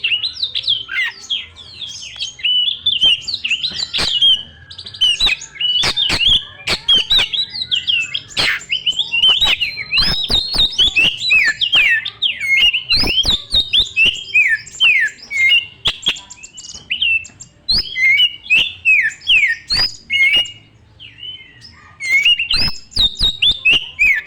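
Oriental magpie-robin (kacer) singing continuously in rapid, varied phrases of whistles and chirps, with sharp clicks scattered through and a short pause about twenty seconds in.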